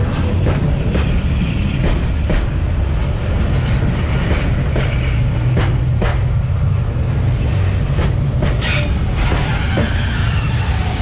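Vietnam Railways freight train of container flatcars and boxcars rolling past close by: a heavy steady rumble, with the wheels clacking over rail joints about once or twice a second and a light wheel squeal near the end.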